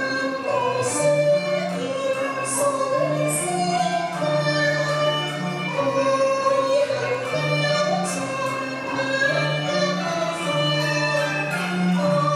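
A woman singing a Cantonese opera song with vibrato, over instrumental accompaniment of held lower notes.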